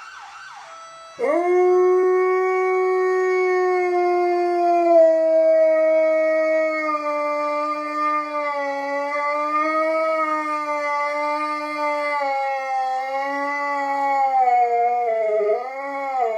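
A large husky-type dog howling along with a siren. The howl starts about a second in as one long held note, steps down in pitch a few seconds later, and wavers up and down more and more toward the end.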